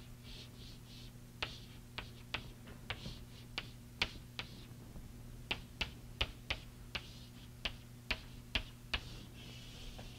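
Chalk tapping and scraping on a blackboard as lines and boxes are drawn: irregular sharp clicks, sometimes two or three in quick succession, with short bursts of scratchy hiss, over a steady low hum.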